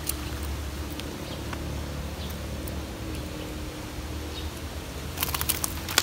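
Wind buffeting the microphone as a steady low rumble, with a quick run of sharp clicks and knocks about five seconds in.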